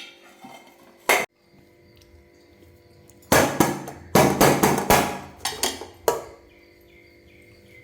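Metal steaming plate being knocked and tapped against another plate to release a steamed semolina cake. There is one sharp knock about a second in, then a quick run of knocks over about three seconds.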